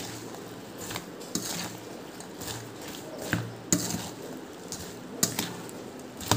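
Steel spoon stirring oil-coated dried amla pickle in a steel bowl: irregular scraping and rattling of the berries, with a few sharp clinks of spoon on bowl.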